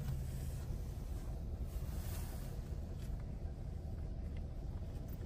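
Steady low rumble inside a car's cabin as it idles and creeps forward in a queue of traffic.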